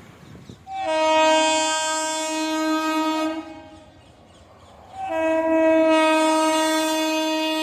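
Indian Railways electric locomotive's horn sounding two long blasts as the train approaches. Each blast opens with a brief blip, and the second is still sounding at the end.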